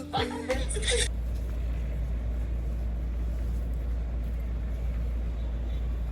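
Steady low rumble with a light hiss over it, like the inside of a moving road vehicle.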